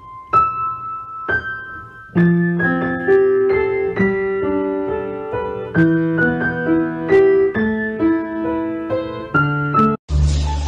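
Background piano music: a few single notes stepping upward, then a gentle melody over chords from about two seconds in. It breaks off near the end into a different, noisier sound.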